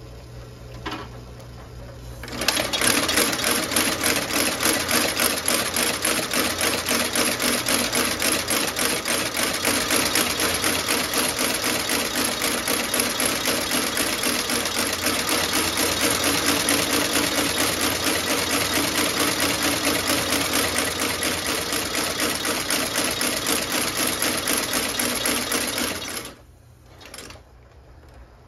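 Landis L outsole stitching machine sewing a new rubber lug sole onto a boot, running at a fast, even stitching rhythm. It starts about two seconds in and stops a couple of seconds before the end, leaving a low hum and a few knocks.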